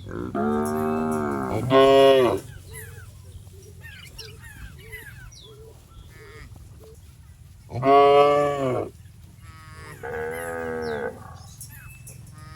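Cattle mooing: two calls back to back near the start, a loud one about eight seconds in, and a softer one around ten seconds.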